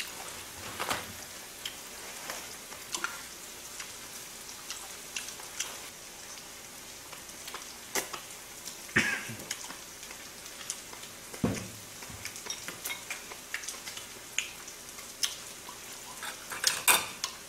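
Pork belly and enoki mushrooms sizzling in oil in a wide frying pan: a steady hiss dotted with frequent small crackles and pops. A few louder eating sounds close to the microphone come through about nine and eleven seconds in, and again near the end.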